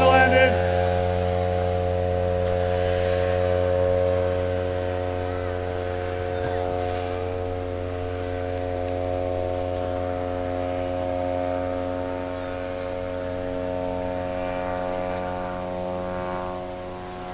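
A steady low hum with many evenly spaced overtones, unchanging in pitch. There is a brief rising chirp right at the start.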